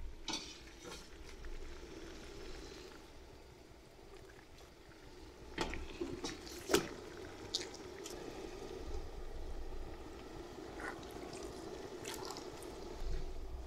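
Water bubbling in a stainless steel steamer pot, with a few sharp clinks and knocks as whole fish are set into the perforated steel steamer basket.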